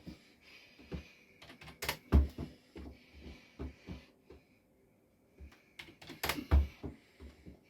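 Irregular tapping and knocking in a small room, with two heavier thumps, about two seconds in and again around six and a half seconds.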